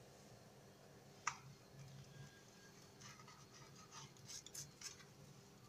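Faint scraping of a spatula working a piece of kunafa loose from a metal baking tray, with one sharp tap against the tray about a second in and a run of light scratches near the end.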